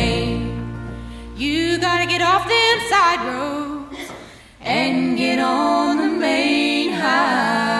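Bluegrass-style vocal harmony singing by female voices with little instrumental backing: a held chord fades out, then the voices sing phrases with a brief break about four and a half seconds in.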